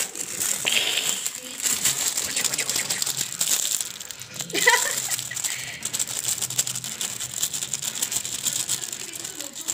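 Crinkling and rattling of paper and plastic, with small light knocks, as a cat steps about on a paper-lined cabinet shelf among jars. A brief squeak that bends up and down comes about halfway through.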